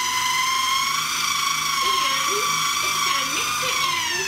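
KitchenAid 9-Cup food processor motor running on high speed, a steady high whine, as liquid is drizzled in to mix yeast dough. Its pitch sags slightly near the end.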